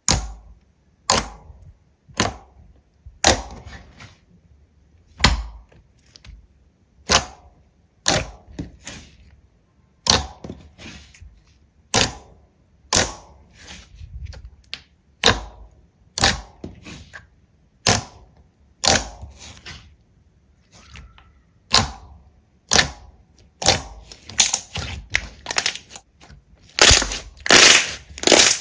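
Slime being pressed and stretched by hand, giving sharp pops about once a second that come faster and louder in the last few seconds.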